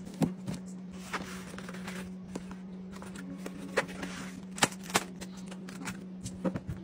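Groceries handled and set down on a kitchen countertop: a plastic juice jug, a cardboard egg carton and plastic-wrapped packs of franks, giving scattered sharp taps and knocks with some rustling of packaging. A steady low hum runs underneath.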